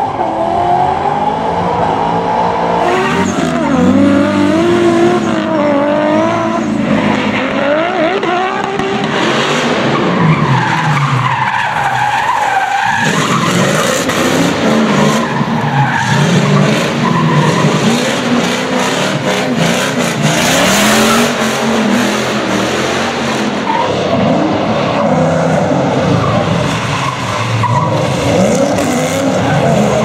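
Drift cars' engines revving hard, the pitch rising and falling continuously as the throttle is worked, with tyres squealing and skidding through long slides.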